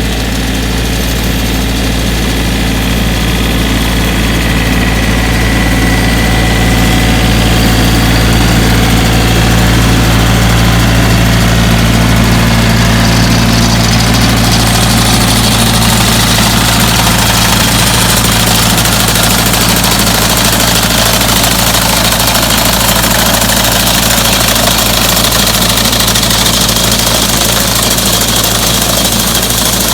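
Compact diesel tractor engine running steadily, a little louder over the first several seconds.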